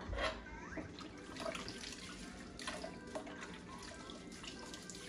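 Water running into a sink, with scattered light clinks and knocks throughout.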